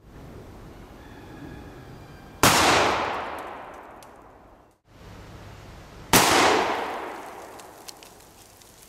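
Two shots from a Remington 870 Express Super Magnum 12-gauge pump shotgun, about four seconds apart, each a sudden blast with a long echoing decay, heard from near the target board.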